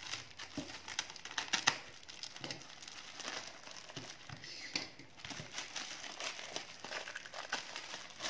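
Clear plastic bag crinkling and rustling as it is slit with a utility knife and pulled open, with irregular crackles and small clicks throughout.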